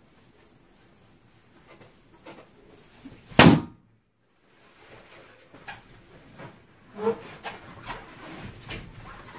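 A large latex balloon bursting as someone sits down on it: one sharp bang about three and a half seconds in. Later, from about seven seconds in, rubbing and short squeaks of latex against a fursuit's fur as another balloon is mounted.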